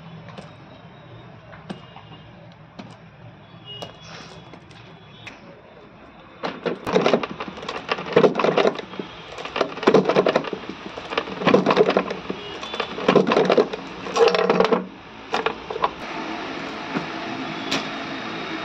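Small metal clinks of cable end fittings, then a hand-operated bench press working through about six loud strokes, roughly one every second and a half, as metal end fittings are pressed onto speedometer cables. A steady mechanical whir comes in near the end.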